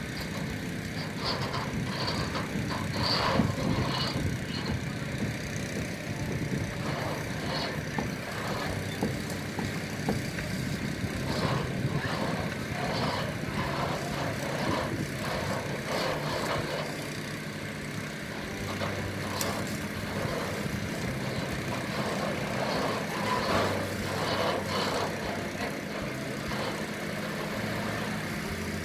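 Concrete pump truck's diesel engine running steadily as the heavy truck creeps forward over rough, grassy ground, with scattered short clicks and knocks over the engine sound.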